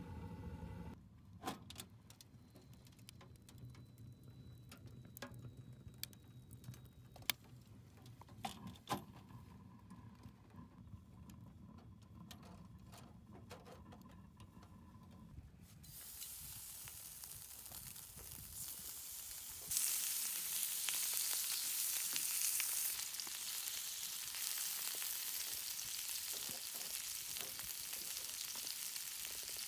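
A few sharp metal clicks as the sliding air-intake plate on a galvanized can wood stove is moved. About halfway through, bacon starts sizzling in a frying pan on the stove, and the sizzle grows louder a few seconds later.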